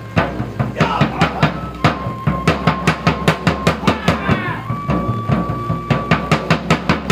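Wooden staffs clacking together in rapid strikes, mixed with drum beats, while a transverse flute holds long notes with a short falling slide between them, over a low steady drone.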